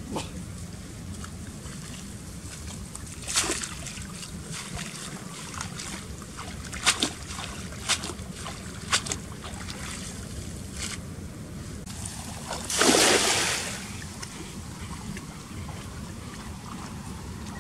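Water splashing at the lagoon's edge: a few short splashes, then one louder rushing splash lasting about a second, over a steady low wind rumble on the microphone.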